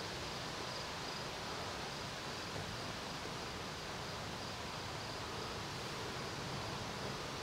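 Outdoor meadow ambience: a steady hiss of background noise with a faint, high insect chirp repeating evenly.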